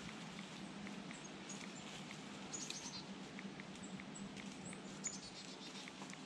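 Faint scattered ticks and rustles in dry leaf litter over a low steady hum, with a few brief high chirps.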